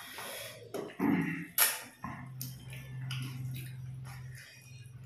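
Close-up eating sounds: wet lip smacks, clicks and sucking from people chewing fish head and rice by hand, with a low steady hum from about two seconds in.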